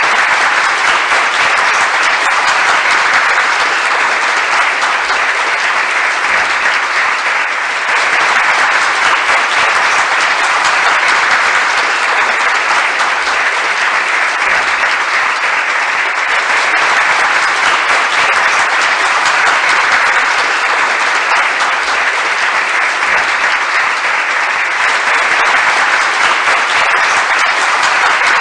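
Crowd applauding steadily: many hands clapping in a dense, even wash with no single claps standing out, dipping briefly about seven seconds in.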